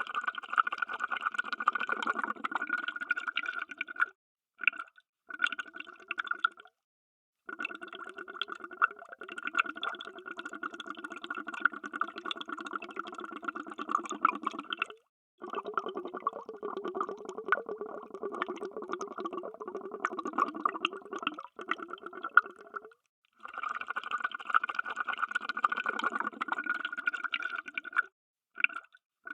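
Underwater bubbles streaming, a dense bubbling in several long runs broken by short, abrupt silences.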